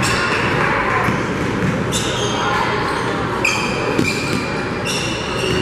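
Basketball sneakers squeaking sharply on a hardwood gym floor, four or five short squeals, with a basketball being dribbled, over the steady hum of crowd chatter in a large echoing gym.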